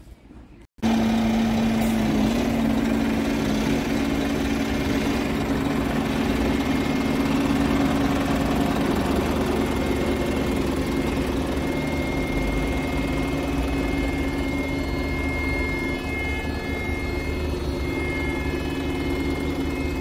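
Scania P360 truck's diesel engine running steadily, a loud even hum with a strong low drone, heard from inside the cab. It cuts in abruptly about a second in.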